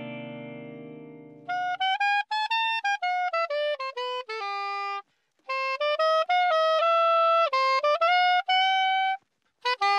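Soprano saxophone playing a quick melodic run of separate notes in two phrases, with a short break about five seconds in. Under its start, a ringing chord fades out over the first two seconds.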